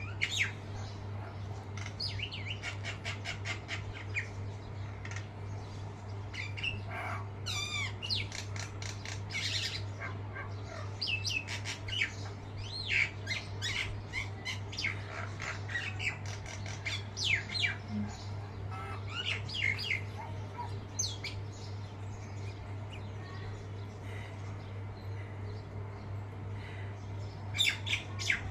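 Birds chirping and calling: a dense run of quick, sharp chirps and short sweeping calls, thinning out for a few seconds near the end. A steady low hum lies underneath.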